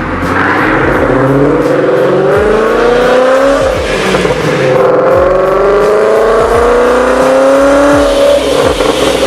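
Car engine under hard acceleration, its pitch climbing steadily through a gear, dropping at a shift about three and a half seconds in, then climbing again through the next gear before another shift near the end.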